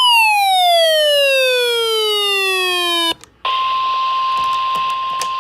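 A loud electronic tone, rich in overtones, sweeps steadily down in pitch and cuts off sharply about three seconds in. After a brief gap a steady NOAA Weather Radio 1050 Hz warning alarm tone comes back over radio hiss, with a few faint clicks.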